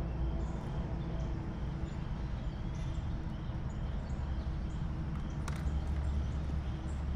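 Outdoor ambience: a steady low rumble with faint, scattered bird chirps. There is a single short click about five and a half seconds in.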